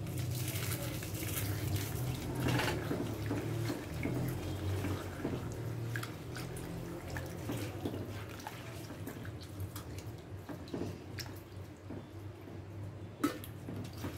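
A hand sloshing and squeezing in tamarind water in a clay pot, crushing salt and dried red chillies into it: irregular splashing and small drips over a low steady hum, with one sharper knock near the end.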